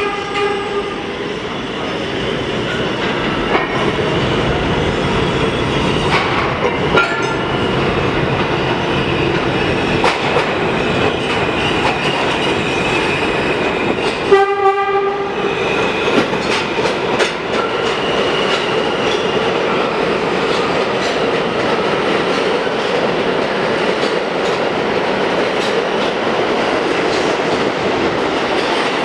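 New York City Subway train running through an underground station: a steady rumble of wheels on the rails with rapid clicks over the rail joints. A short horn blast sounds at the start, and a louder horn blast of about a second sounds halfway through.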